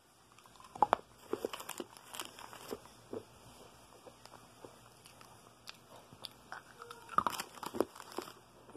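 Anpanman mini ramune candy being bitten and crunched, in two bursts of sharp crackling: one about a second in lasting a couple of seconds, another about seven seconds in, with a few scattered clicks between.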